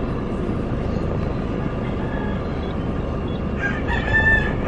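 Steady road and engine noise inside a moving car's cabin. Near the end a rooster crows once, in one long, slightly wavering call.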